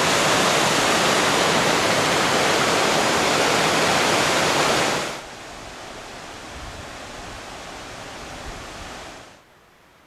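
Loud, steady rush of a mountain torrent cascading over boulders below a waterfall. About five seconds in it cuts abruptly to a quieter, more distant rush of water, which falls away to a faint hiss near the end.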